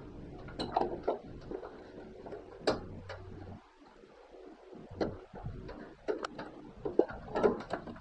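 Irregular clicks, taps and knocks of hands and a hand tool working on wiring and plastic parts inside a washing machine cabinet, coming more often near the end.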